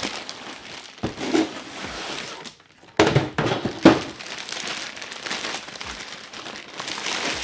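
Clear plastic bag crinkling and rustling around a tripod carrying case as it is pulled out of its cardboard box and handled, with a few sharp knocks from the case and box. The rustling stops briefly just before the halfway point and then starts again sharply.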